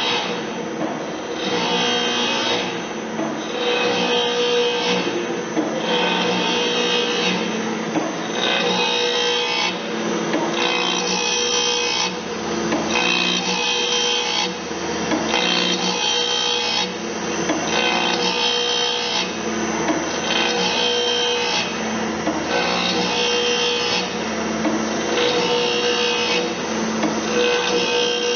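Grinding wheel of an automatic bandsaw blade sharpener grinding the saw teeth one by one: a rasping grind that rises and falls in a regular cycle, about every one and a half to two seconds, as the wheel dips into each tooth over a steady motor hum.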